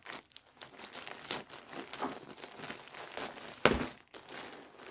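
A plastic parcel mailing bag crinkling and rustling as it is pulled and torn open by hand. A single sharp, loud crackle comes about two-thirds of the way through.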